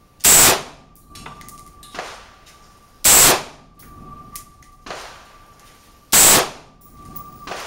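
Three loud rifle shots from a .223 AR-style rifle fired from a bench rest, about three seconds apart, each with a short echo, with fainter cracks in between.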